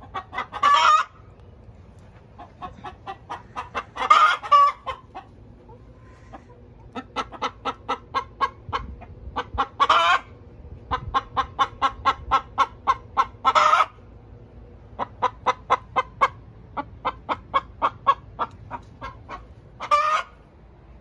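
Hens cackling: runs of quick clucks at about four a second, each building to a loud, drawn-out squawk, five times over. It is the cackle a hen gives around laying an egg.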